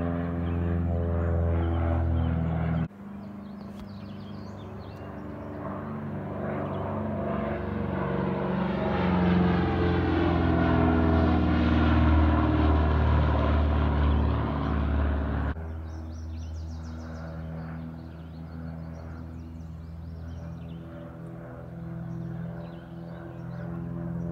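Twin piston-engine Piper PA-23 Aztec passing low overhead: the engine and propeller drone swells to a peak past the middle, with a sweeping whoosh as it goes over, and is cut off abruptly. Steady ambient background music plays before and after it.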